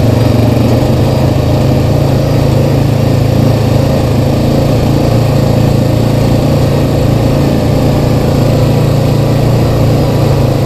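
Honda Rancher 420 ATV's single-cylinder engine running steadily as it is ridden along a rough dirt trail, heard from the rider's seat.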